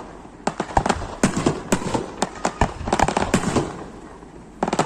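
Fireworks going off in rapid clusters of sharp bangs and crackles, easing briefly before a fresh burst of cracks near the end.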